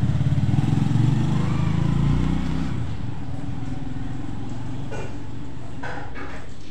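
A small engine running with a rapid low pulsing, louder for the first two seconds or so, then easing to a steadier, quieter drone. Two faint knocks come near the end.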